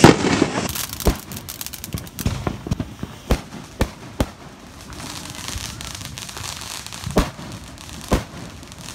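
Consumer fireworks going off: a loud bang at the start, then a string of sharp pops and cracks at irregular intervals.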